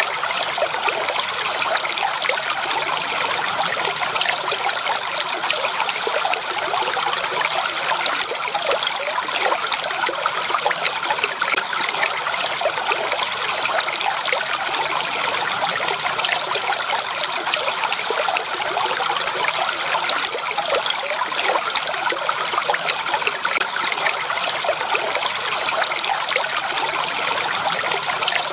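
Small stream of water trickling and babbling, a steady, even rush of running water.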